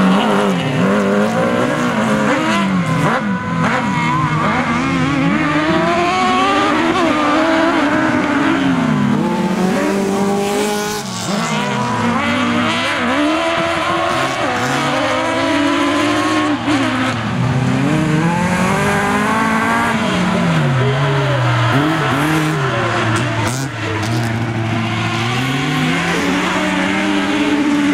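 Autocross race cars' engines revving hard around the track, the pitch repeatedly climbing under throttle and dropping as they lift off, with more than one engine heard at once.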